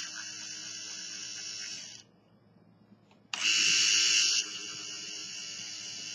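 Electric actuator motor of a motorized ball water shutoff valve running with a high-pitched whir as it turns the valve: one stroke ends about two seconds in, and after a short pause the next stroke starts, loud for about a second, then quieter until it stops near the end.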